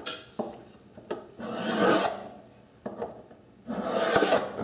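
A pointed marking tool scraping across the surface of a non-stick metal pie pan in two long strokes, scoring layout lines, with a few light taps in between.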